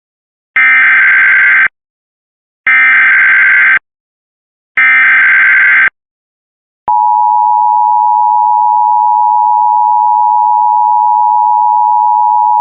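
Emergency Alert System tones: three one-second bursts of SAME digital header data, a second apart. Then, about seven seconds in, the steady two-tone attention signal starts and holds. Together they signal the start of a new alert.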